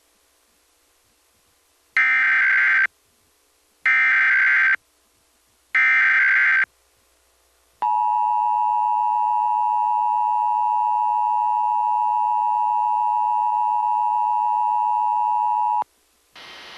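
Emergency Alert System tones for a Required Monthly Test: three short bursts of buzzing SAME data header, about two seconds apart, then the steady two-tone EAS attention signal (853 and 960 Hz) for about eight seconds, which cuts off sharply.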